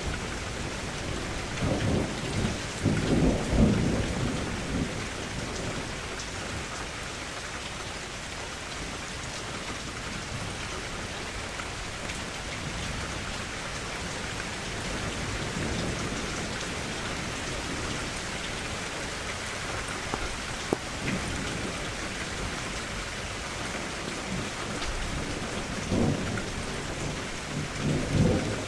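Steady rain falling against a window, with low thunder rolling in twice: about two seconds in and again near the end.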